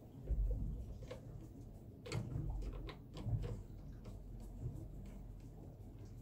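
Scattered light clicks and knocks of hand tools and metal fittings being worked loose on a Yanmar marine diesel's turbocharger, over a low rumble.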